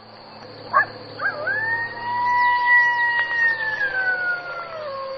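Coyote howling: two short yips, then one long high howl held steady and sliding down in pitch, with a second howl starting near the end.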